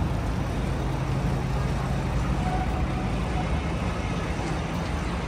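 Steady city street traffic noise: a low rumble of engines with a continuous hiss.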